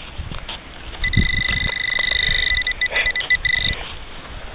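Metal detector's target tone: a steady high beep holds for a couple of seconds over a buried target, then breaks into short stuttering beeps and stops, as the coil is swept across a good signal. Low knocks and rustling from handling the detector lie underneath.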